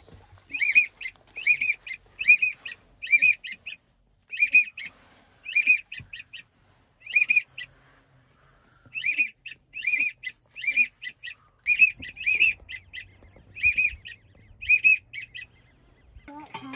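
Waterfowl calling overhead: high, whistled calls in quick groups, a stronger note followed by two or three short ones, repeated over and over with a couple of brief pauses.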